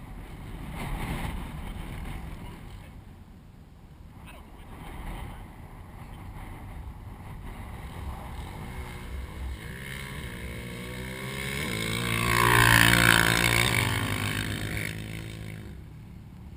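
ATV engine at full throttle, growing louder as it approaches, loudest about thirteen seconds in, then dropping in pitch and fading as it passes.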